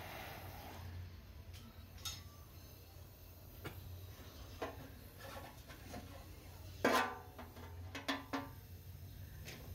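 A few scattered metallic knocks and clinks, like hand tools or metal parts being handled and set down. The loudest comes about seven seconds in and rings briefly. A faint low steady hum runs underneath.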